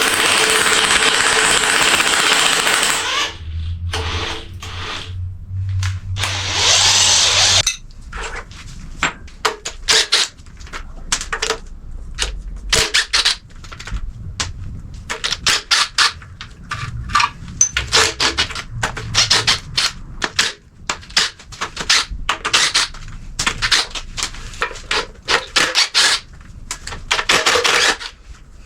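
Tools at work on an engine's front end: a power tool runs in two short spells near the start, then a long run of irregular sharp metal clicks and clinks, as bolts and parts are worked loose.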